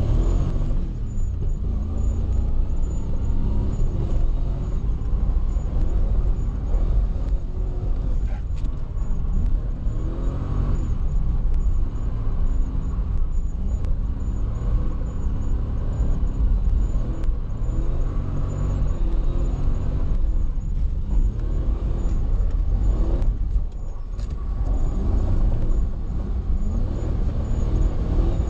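Swapped Toyota 1UZ V8 engine in a Nissan 240SX revving up and down again and again under throttle through a drift run, heard from inside the cabin with a heavy low rumble; the engine note drops briefly about two-thirds of the way through.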